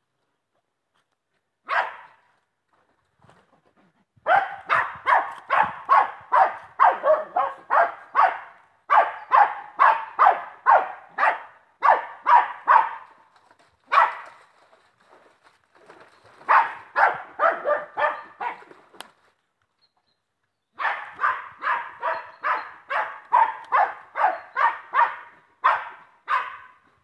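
Wire-haired dachshund barking in rapid runs of about three barks a second, with short pauses between runs: the dog baying at a wild boar.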